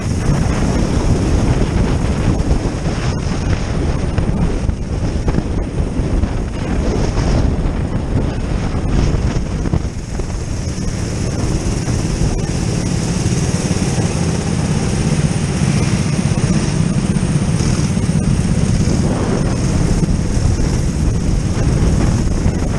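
Racing go-kart's engine running at speed, heard from on board, with wind buffeting the microphone.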